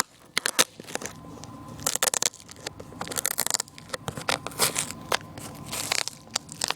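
Packaging being handled and torn open while unboxing a microphone: irregular crackling, crunching and rustling with many sharp clicks.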